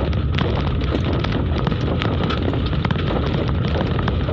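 A vehicle's steady low rumble as it drives over a rough, unpaved dirt road, with frequent short clicks and rattles from the bumpy surface.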